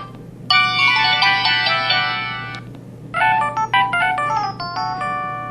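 IM-7200 mobile phone playing two short electronic ringtone jingles through its speaker. The first is a quick run of chiming notes about half a second in that lasts two seconds. After a brief pause, a second, choppier melody of short notes starts about three seconds in.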